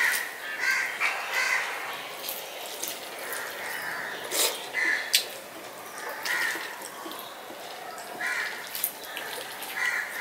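Rice and lentil dal mashed and mixed by hand on a steel plate: short, irregular wet squelches, with a few sharp clicks of fingers against the plate.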